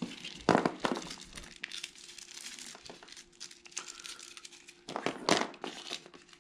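Packaging crinkling and rustling as small accessory parts are unwrapped by hand, in irregular crackles with louder bursts about half a second in and again near five seconds in. A faint steady hum lies underneath.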